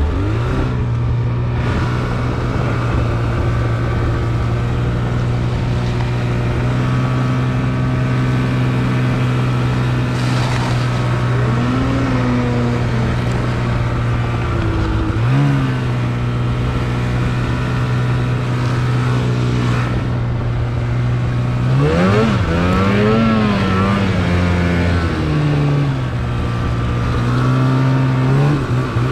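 Snowmobile engine running at a steady pitch at low speed in deep snow, with several short throttle blips where the revs rise and fall, the longest about three-quarters of the way through.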